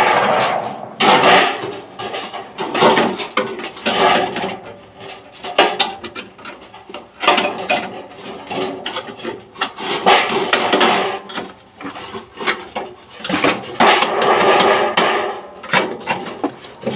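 Irregular hammer blows and scraping on a sheet-metal Spanish gutter being worked into a corner joint.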